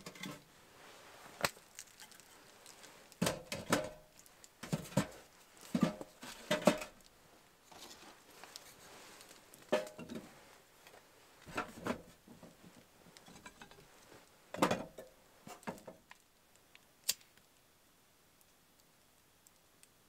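Pieces of split firewood being set into a metal tent wood stove's firebox: a series of separate wooden knocks and clunks against the stove, stopping a few seconds before the end.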